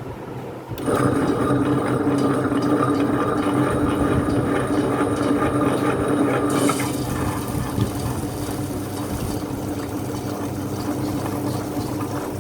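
Small tabletop wet grinder starting up about a second in and running with a steady hum while soaked rice and lentils are tipped into its 2-litre drum with their water, giving a wet pouring, splashing sound that eases about two-thirds of the way through.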